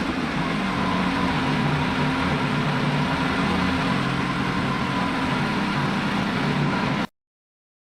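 Wood-Mizer LX55 portable band sawmill's engine running steadily. It cuts off abruptly about seven seconds in.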